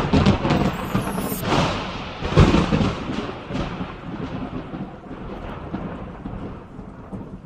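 Thunder rolling and rumbling in several loud peaks during the first three seconds, then slowly dying away, with the hiss of rain underneath.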